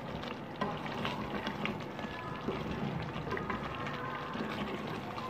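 Masala and potato chunks sizzling in oil in an aluminium pot while a spoon stirs them, with scattered light scrapes and clinks of the spoon against the pot. The masala is being fried down until its colour changes.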